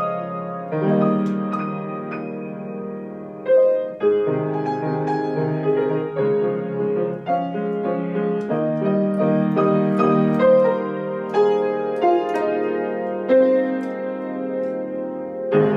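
Grand piano playing a gentle original piece: melody over sustained chords that change about every second. It closes with a loud chord struck just before the end.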